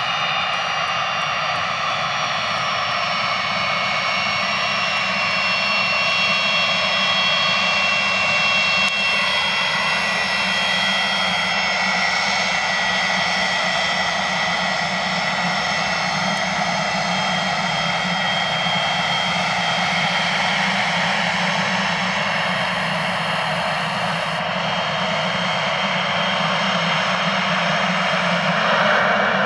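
Pilatus PC-24's twin Williams FJ44-4A turbofans running at low taxi power: a steady jet whine of several high tones over an engine rush. It grows a little louder near the end as the jet turns.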